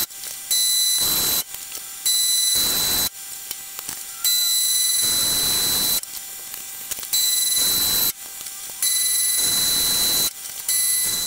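Horizontal metal-cutting bandsaw cutting EN8 mild steel bar into short lengths: a high-pitched ringing, rasping blade noise. Loud stretches of one to two seconds start and stop abruptly, with quieter stretches between them.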